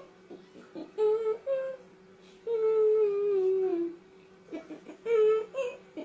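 A woman humming a wordless tune with closed lips: a couple of short notes, then a long note that slides downward, then two more short notes near the end.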